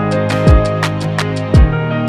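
Background music: sustained chords with a deep, falling-pitch thump twice about a second apart and quick regular ticks over the top.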